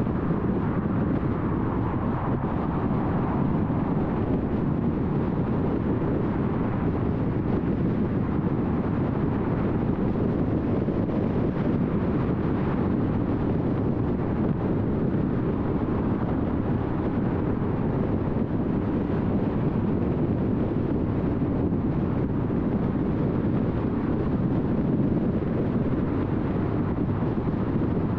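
A car driving at steady speed: a constant rumble of tyre and road noise with engine hum, without changes.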